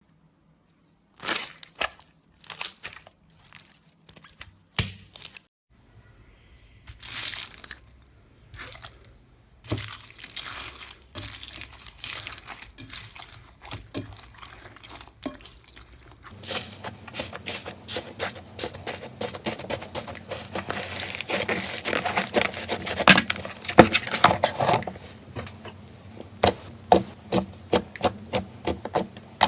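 Slime being pressed, poked and pulled by hand: sticky clicks and pops, sparse at first, with a denser run of crackling in the middle.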